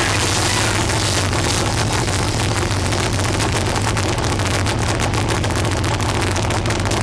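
Trophy truck's engine idling steadily while stopped in the pit, a constant low hum under an even hiss.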